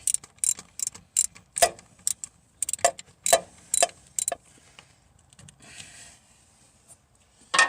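Hand tools at work on a Ford industrial engine's spark plugs: a string of sharp, irregular metallic clicks and clinks of a socket and ratchet, dying away after about four and a half seconds.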